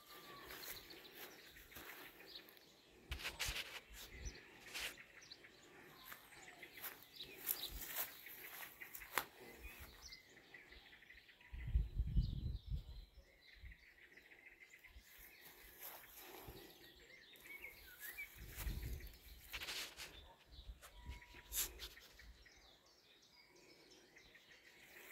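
Faint outdoor garden ambience with a few scattered bird chirps and light clicks and rustles. Two short low rumbles stand out, one about halfway through and another a few seconds later.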